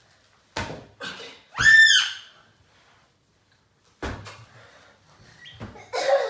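A loud, high-pitched shriek about a second and a half in, between a few dull thumps of a rubber punch balloon being batted by hand.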